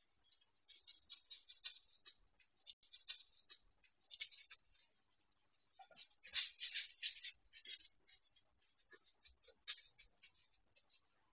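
Irregular scratchy crunching and rustling in short spells, loudest about six to eight seconds in, from a black bear moving about over frozen snow and dry grass.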